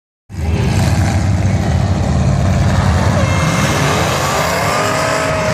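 Demolition derby cars' engines running together at a loud, steady level, with some revving. From about three seconds in, a long held high-pitched tone sounds over the engines.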